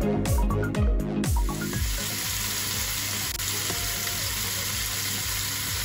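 Electronic music with a beat for about the first second and a half, then it cuts to chunks of beef brisket searing in hot oil in a stainless steel pot: a steady sizzle.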